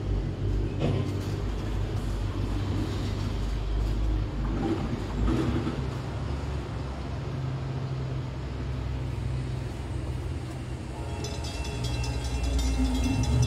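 Norfolk Southern freight train rolling past, a steady low rumble of wheels on rail with scattered clicks and clanks. Near the end a high-pitched metallic squeal joins in.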